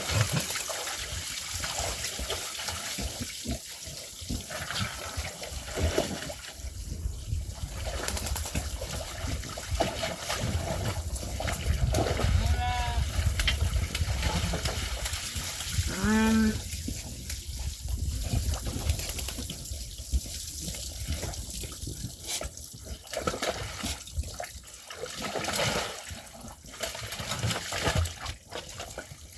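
Sheep and lambs bleating a few separate times over a steady rushing background noise.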